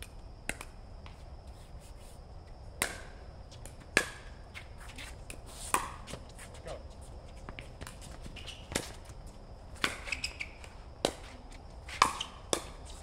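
Pickleball rally: paddles hitting a plastic pickleball with sharp pops, about one every second or so and irregular. Fainter taps come between them.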